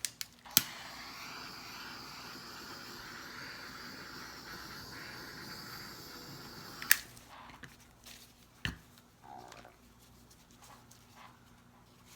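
A handheld butane torch clicks alight and hisses steadily for about six seconds, then shuts off with a sharp click. A few small knocks follow.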